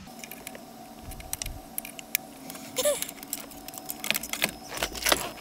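Plastic wiring-harness connectors and loose wires clicking and rattling as they are handled and plugged into the back of a car stereo head unit, a scatter of sharp clicks that gets busier in the second half.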